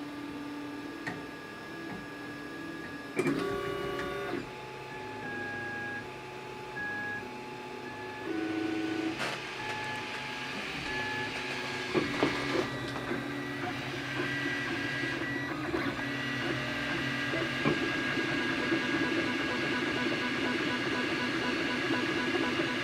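3D printer's stepper motors whining as the print head moves, a series of steady tones that jump in pitch every second or so. The sound grows busier and louder from about halfway through.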